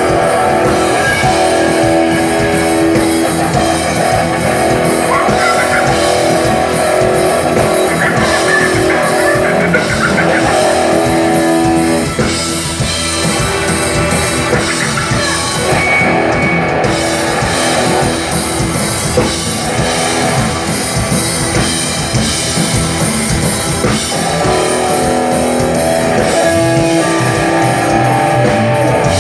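Live band playing a rock song on guitar and drum kit.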